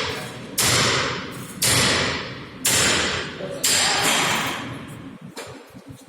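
Four heavy knocks about a second apart, each ringing out and fading before the next, stopping about four seconds in.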